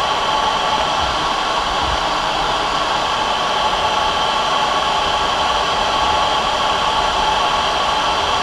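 Steady rushing noise of a MiG-29 jet fighter in flight, its engines and the airflow blending into one even roar-like hiss with no change in pitch or level.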